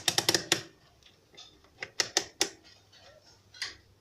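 Sharp plastic-and-metal handling clicks: a quick run of about six at the start, three more about two seconds in, and one near the end.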